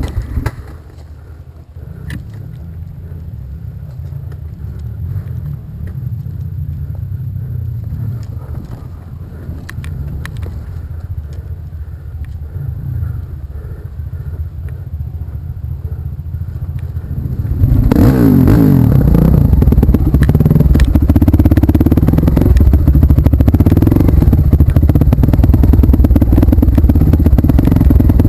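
Trail motorcycle engine running at low throttle with some clatter, then about two-thirds of the way through the throttle opens and it revs up and runs loud and hard under load.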